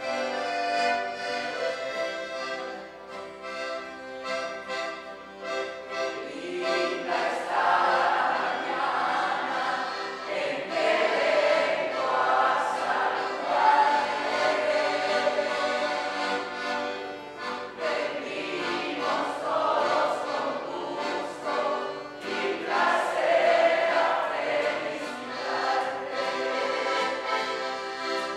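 Closing hymn with acoustic guitar accompaniment: the instruments play alone at first, then singing comes in about six seconds in and goes on in phrases.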